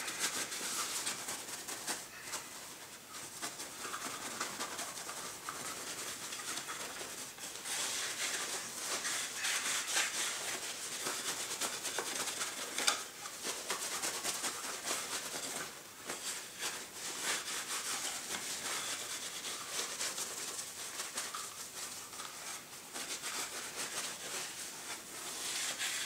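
Cloth buffing beeswax polish into the wooden forend of a Browning 325 shotgun: a steady dry rubbing with a few brief pauses.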